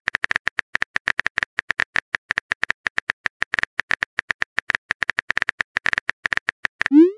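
Simulated phone-keyboard typing clicks, fast and irregular, as a chat message is being typed. Near the end comes a short rising bloop, the message-sent sound.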